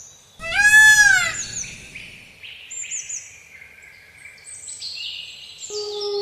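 A cat meows once, a loud, arched call just under a second long, with birds chirping in the background throughout. Near the end a long, steady howl begins.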